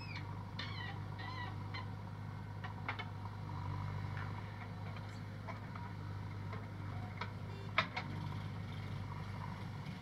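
JCB backhoe loader's diesel engine running steadily at a working drone while the backhoe arm swings and dumps. A few short chirps come in the first two seconds, and there is a sharp knock about eight seconds in.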